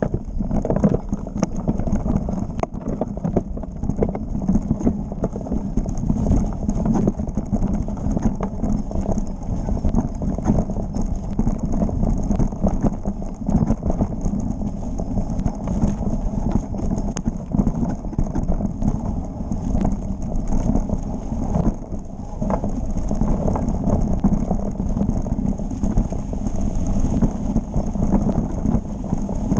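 Mountain bike clattering downhill over rough dirt trail: a continuous irregular rattle and knocking of chain, frame and tyres over roots and stones.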